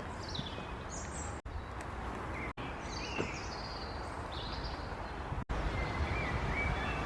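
Birds chirping and calling in woodland over a steady low rumble, broken by three abrupt dropouts where the audio cuts.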